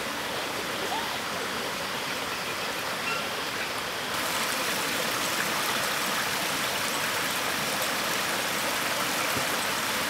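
Steady rush of a shallow rocky stream running over boulders. It gets a little louder and brighter about four seconds in.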